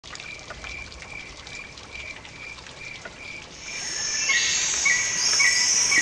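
Insects chirping: one chirp repeats evenly about three times a second, then about three and a half seconds in a louder, higher-pitched buzzing chorus joins it.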